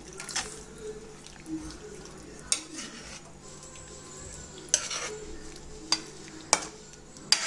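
Metal spoon stirring thick curry gravy in a pan, scraping through it with about six sharp clicks of the spoon against the pan spread through.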